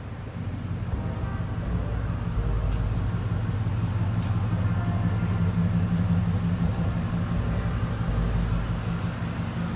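1996 Chevrolet Impala SS's 5.7-litre LT1 V8 running steadily, its low note swelling a little over the first few seconds and easing off slightly near the end.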